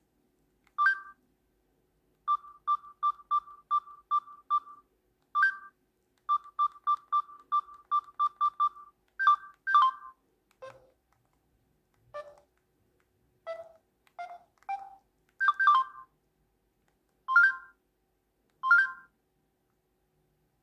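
Samsung GT-E2232 feature phone beeping as its keys are pressed to place a call. Short electronic key tones come in quick runs of three or four a second, then in single beeps that change pitch from one to the next.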